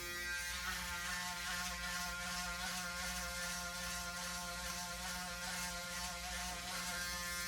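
Braun Series 9 Pro 9465cc electric foil shaver, its motor newly replaced, running with a steady buzz as it is drawn across the scalp to shave the head.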